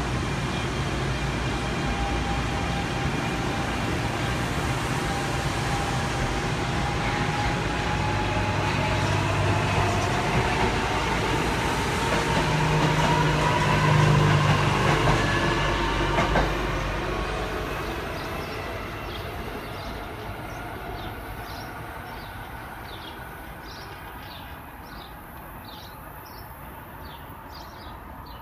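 NJ Transit Arrow III electric multiple unit accelerating away on the rails: the whine of its GTO inverters and AC traction motors rises slowly in pitch over the rumble of its running gear. It is loudest about halfway through, then fades as the train recedes, leaving birds chirping near the end.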